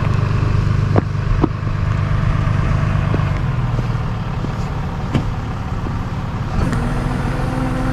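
Tow truck engine running steadily while winching, with a few sharp clanks. Near the end the engine note changes and a steady higher tone comes in.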